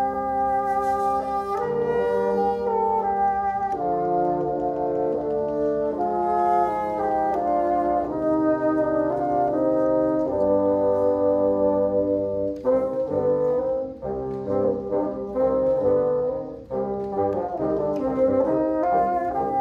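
Bassoon quartet playing in harmony: long held chords for roughly the first twelve seconds, then shorter, detached notes.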